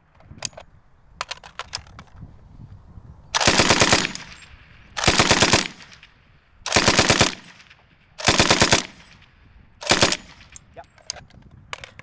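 Bren light machine gun on a tripod firing five short bursts of several rounds each, about one and a half seconds apart, at the rapid rate of 125 rounds a minute; the last burst is shorter. Light clicks come between the bursts.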